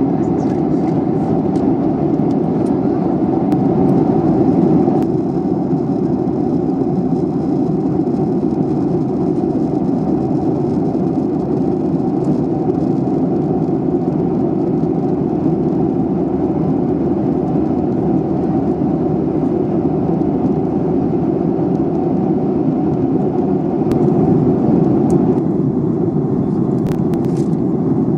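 Airliner cabin noise: the steady low rush of the jet engines and airflow heard from a passenger seat, with a few faint clicks near the end.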